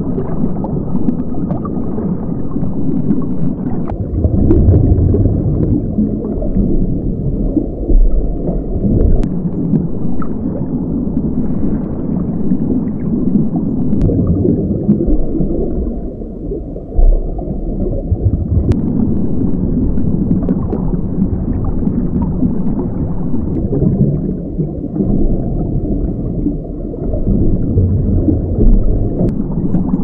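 Underwater ambience: a steady low rumble of moving water, without distinct animal calls.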